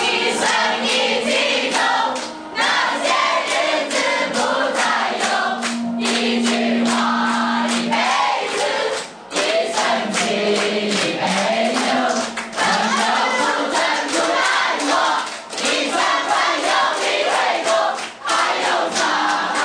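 A group of teenage boys and girls singing a song together, with handclaps keeping time.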